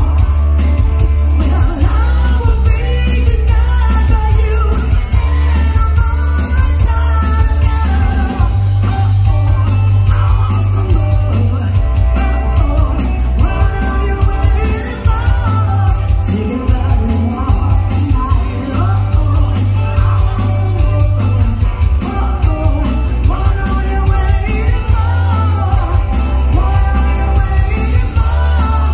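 Live rock band playing loudly: a woman sings lead over electric guitars, electric bass and a drum kit, with a heavy, steady bass line and busy cymbals.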